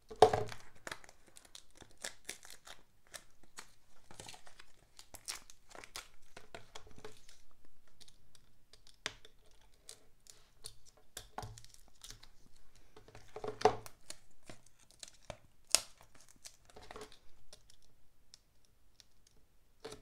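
Craft knife cutting a round hole through packing-tape-covered foam board on a cutting mat: irregular scratching and crinkling of the plastic tape, with a sharp click just after the start and a few stronger clicks later.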